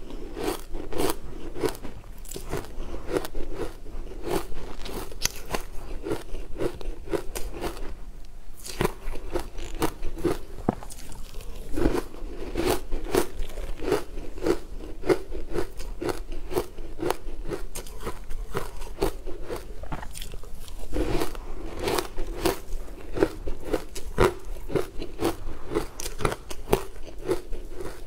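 Close-up crunching and chewing of frozen green-coated ice chunks: quick, regular crunches, several a second, with a short lull a third of the way in.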